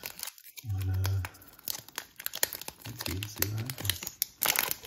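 Plastic foil wrapper of a 2020 Panini Absolute Football trading card pack crinkling in the hands as it is worked open, with a loud burst of crackling and tearing near the end as the wrapper is ripped.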